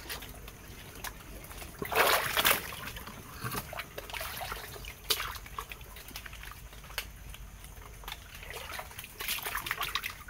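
Wading steps through shallow swamp water: irregular splashes and sloshes, the loudest about two seconds in.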